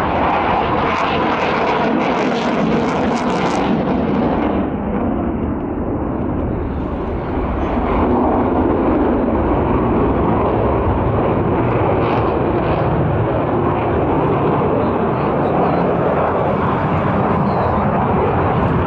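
HAL Tejas fighter's GE F404 turbofan jet engine during a display flight, a loud, steady rush of jet noise. The sharper high hiss fades about four seconds in, and the sound grows louder again around eight seconds in.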